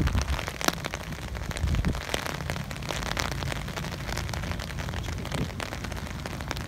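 Steady rain falling, with many close drops ticking sharply and a low rumble underneath.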